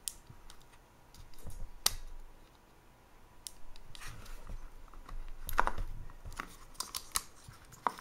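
Needle-nose pliers clicking and snapping against the small plastic clips that hold two circuit boards together, as the clips are squeezed back to release the boards. The clicks are scattered, with a sharp one about two seconds in and a quick run of them past the middle.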